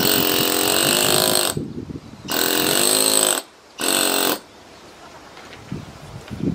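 Pneumatic chisel (air hammer) cutting into a greywacke river stone in three bursts: about a second and a half, then about a second, then a short half-second burst. Its rapid buzz wavers a little in pitch, and it stops after about four and a half seconds.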